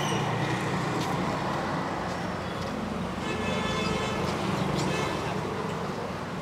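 Street traffic with engines running and a vehicle horn sounding for about a second, near the middle.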